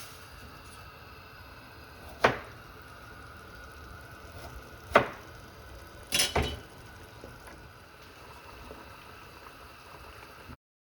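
Sharp clinks of a utensil or cookware against a pot, three times, the last a quick double knock, over a steady low hiss of simmering.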